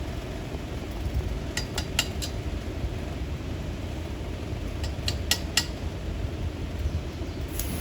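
Light metallic clinks and taps in small groups of two to four, over a steady low hum.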